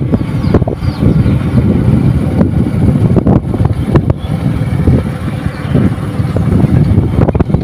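Heavy wind buffeting on the microphone while riding on a moving two-wheeler, with a low rumble of travel underneath and irregular gusty thumps.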